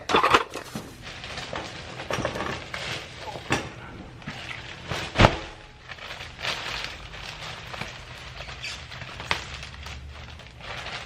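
Rummaging through stored belongings by hand: irregular rustling, clicking and clattering of items being moved, with a sharp knock about five seconds in.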